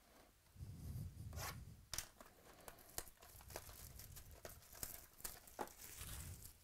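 Plastic wrapping on a trading-card box being torn and crinkled: an irregular run of sharp crackles and rips, with a few dull knocks as the box is handled.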